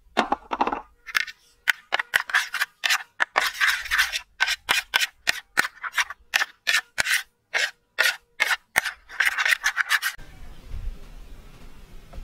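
Metal spoon scraping and clinking against a ceramic plate in quick, irregular strokes while stirring a thick batter; the strokes stop about ten seconds in.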